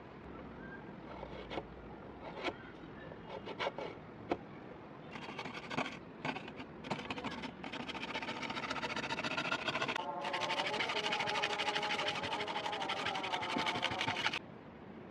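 Scattered clicks and taps, then a hacksaw cutting in quick strokes through a dark handle-scale blank. The sawing becomes a dense, steady rasp with some metallic ringing for about four seconds, then stops abruptly near the end.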